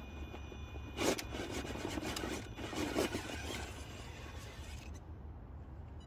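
Axial Capra RC rock crawler climbing over rock ledges: its tires scrabble and scrape on the rock in two loud bursts, about one and three seconds in. A steady high-pitched whine from the brushless motor and ESC stops about five seconds in, over a steady low rumble.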